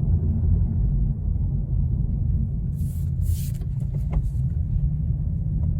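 Steady low engine and road rumble of a 2022 Honda Civic Si's 1.5-litre turbocharged four-cylinder, heard from inside the cabin while driving slowly. A brief hiss comes about 3 seconds in and a single click about a second later.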